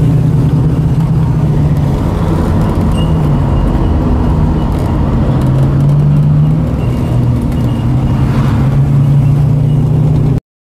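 Car engine running under load, heard from inside the cabin, its pitch dropping and rising a few times as the car slows and speeds up through bends. The sound cuts off suddenly near the end.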